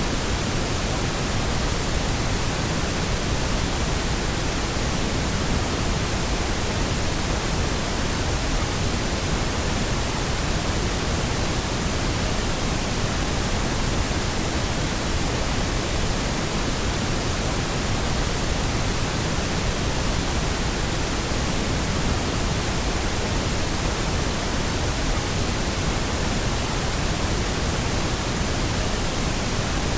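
Synthetic pink noise, a steady, even hiss with no changes.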